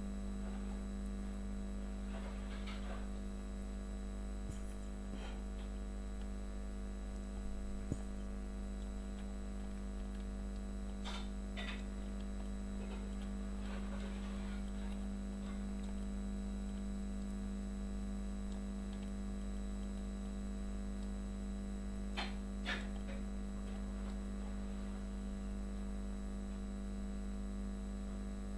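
Steady electrical hum, one strong low tone with many fainter higher tones over it, with a few faint short clicks scattered through.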